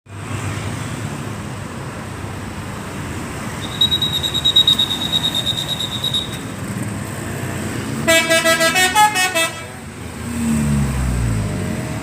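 Tour bus engine running, with a telolet (basuri) multi-tone horn playing a quick run of notes about eight seconds in. Before that a high pulsing tone sounds for about two and a half seconds, and near the end a low engine note falls.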